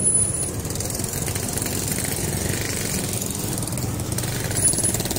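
Motorcycle engine running as a motorbike passes close by on the road, over a steady engine hum.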